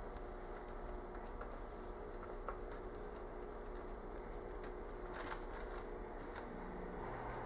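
White-tailed deer eating food from a hand: faint crunching and light clicks, one a little louder about five seconds in, over a steady low hum.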